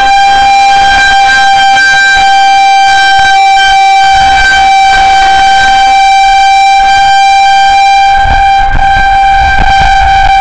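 Federal Signal 2001-130 single-tone electromechanical outdoor warning siren sounding a loud, steady tone: a tornado warning.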